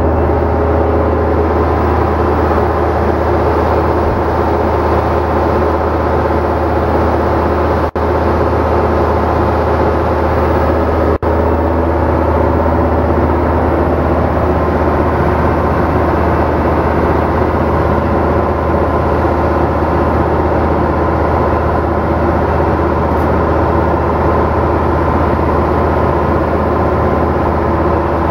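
Heavy engine of concrete-cutting equipment running steadily at a constant speed, with a strong low hum, dropping out for an instant twice.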